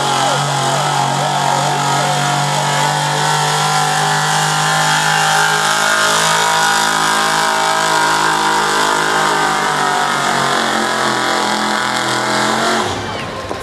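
Pickup truck engine at full throttle, dragging a weight-transfer pulling sled. It runs loud and steady, then drops off sharply about a second before the end.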